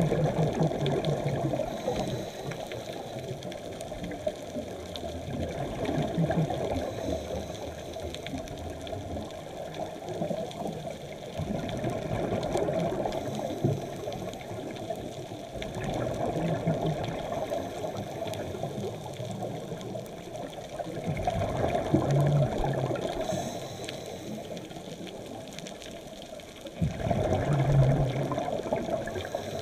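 Scuba diver breathing through a regulator, heard underwater: a steady hiss with a burst of exhaled bubbles every five to six seconds.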